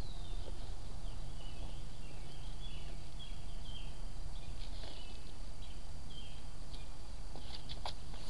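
Steady low outdoor background rumble with a small bird chirping short, high, falling notes over it, repeated several times through the first six seconds. A few sharp clicks near the end.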